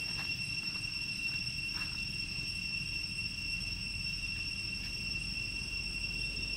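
Steady, unbroken high-pitched insect drone holding one tone, over a low background rumble, with a few faint ticks in the first two seconds.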